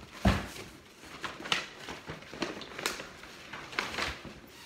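Cardboard shipping box and its packing being handled: a string of irregular rustles, scrapes and knocks, the loudest a thump just after the start.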